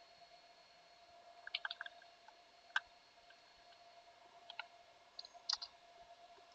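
Computer keyboard keys clicking in a few short, scattered clusters, over a faint steady hum.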